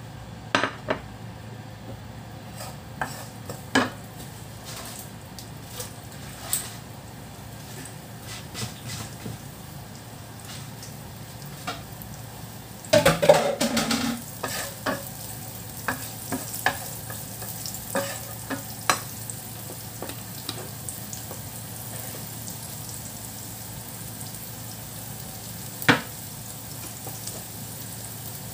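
Julienned ginger sizzling in hot oil in a frying pan, stirred with a wooden spoon that scrapes and knocks against the pan. There is a burst of brisk stirring about halfway through and a single sharp knock near the end.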